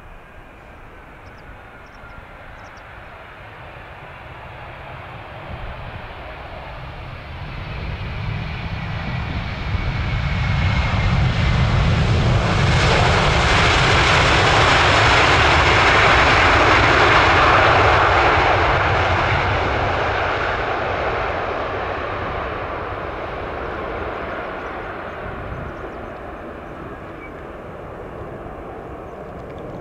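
Boeing 777-200 jet airliner landing. Its engine noise builds from a whine that slides slightly down in pitch, is loudest as the plane rolls past on the runway about halfway through, then fades as it slows away.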